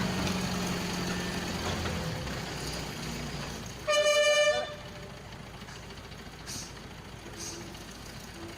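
A heavy vehicle's engine running low, fading away over the first few seconds. About four seconds in comes one short, loud horn blast.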